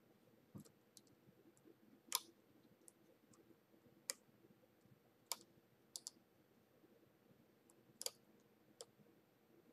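Scattered sharp clicks and light taps, about ten in all and the loudest a little over two seconds in, from small parts of an AMB router spindle's plastic motor housing being handled as a carbon brush, its lead and its hold-down spring are fitted back.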